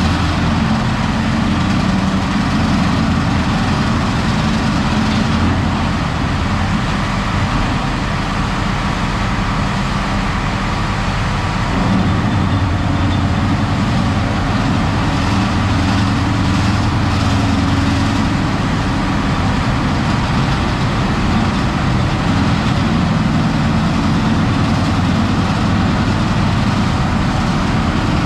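Heavy logging machine's engine running steadily under load, its pitch shifting a little now and then.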